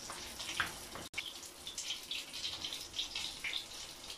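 Breadcrumb-coated fish shallow-frying in a little oil in a pan: a steady sizzle with irregular small crackles and spits. The sound cuts out for an instant about a second in.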